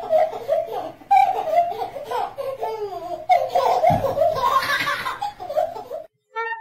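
A baby laughing hard, in repeated giggles and belly laughs. Near the end the laughter cuts off suddenly and music begins.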